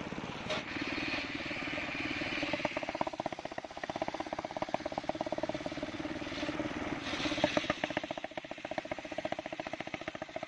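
Homemade engine-driven table circular saw running, its blade ripping lengthwise through a waru (sea hibiscus) log. The engine beats fast and evenly throughout, and a brighter cutting hiss rises about a second in and again around seven seconds in, as the blade bites into the wood.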